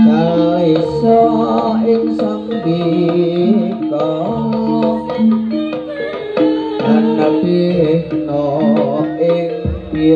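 Live East Javanese jaranan gamelan music: metal-keyed instruments play a stepped melody of held notes over hand-drum strokes, with a wavering melody line above it.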